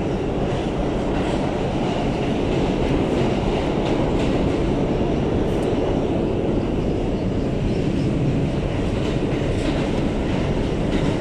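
Steady rumble of an R211 subway car running on the rails, heard from inside the car.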